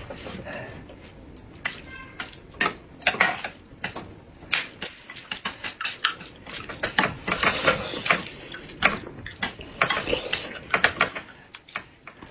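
Tableware clinking: a metal spoon stirring and tapping in a glass mug, with chopsticks knocking on dishes, heard as a string of sharp, irregular clicks.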